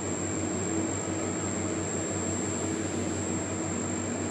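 Toshiba CT scanner running: a steady whirring hum with a thin high whine above it.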